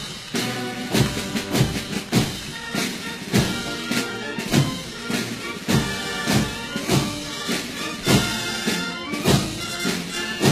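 Marching-band music with brass and a steady drumbeat, a little under two beats a second.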